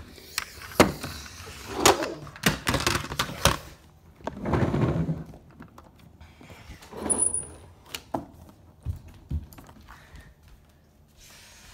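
Toys being handled: scattered knocks, thuds and light clatter, with short stretches of rustling.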